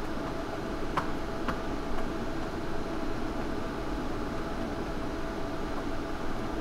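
Steady machine hum with a faint whine, and three light clicks about half a second apart a second or so in.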